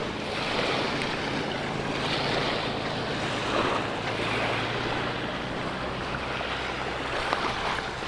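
Small waves washing gently onto a sandy, shell-covered shore in soft swells every second or two, with wind buffeting the microphone.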